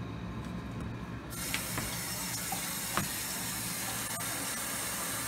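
Bathroom sink faucet turned on about a second in, water then running steadily from the tap into the basin and down the drain, testing the freshly tightened drain connection for leaks.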